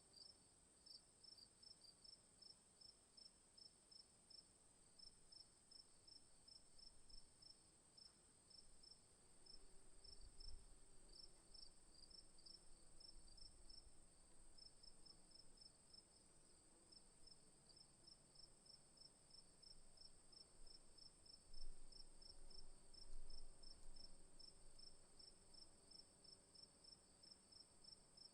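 Faint insects chirping in a steady rhythm, about four chirps a second, over a continuous high-pitched insect buzz.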